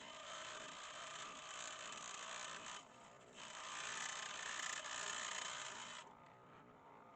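Scroll saw cutting, a steady rasping buzz that dips briefly about three seconds in and drops away near the end.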